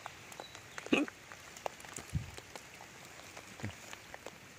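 Rain falling: scattered raindrops tapping over a faint steady patter, with a brief louder sound about a second in and a soft low thud about two seconds in.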